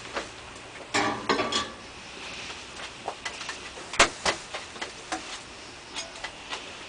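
A person biting into and chewing a whole raw Fatalii Jigsaw chilli pod: a crunchy bite about a second in, then irregular wet clicks and smacks of chewing, with one sharp click about four seconds in.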